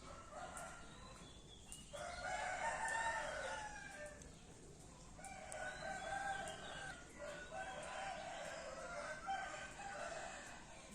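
Roosters crowing, long crows one after another with some overlapping, loudest about two seconds in and again through the second half.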